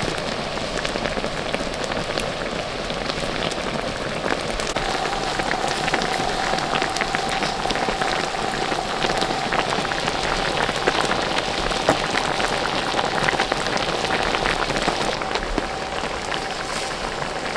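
Broth boiling hard in a pan over a Swedish fire log: dense, rapid bubbling and popping, with crackles from the burning wood. A faint steady tone joins in about five seconds in.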